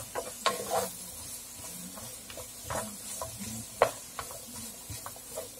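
Broccoli, onion and potato sautéing in butter in a frying pan, stirred with a wooden spatula: a steady sizzle with irregular scrapes and clacks of the spatula against the pan.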